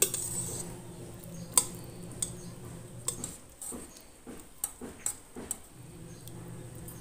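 Metal ladle clinking against a stainless steel pot while fish soup is scooped out: a handful of sharp clinks, the loudest about a second and a half in.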